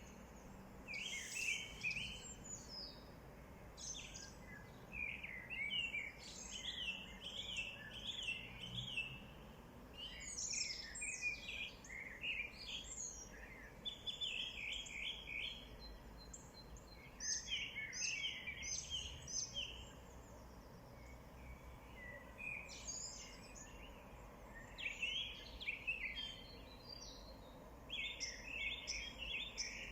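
Small birds chirping and twittering in quick bursts of short high notes, repeating every few seconds over a faint steady background noise.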